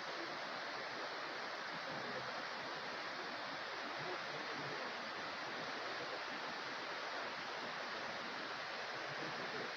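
Steady rushing of a stream flowing over rocks, an even hiss with no breaks.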